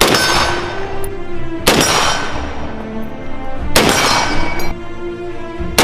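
Four firearm shots, about two seconds apart, each followed by a ringing tail, over background music.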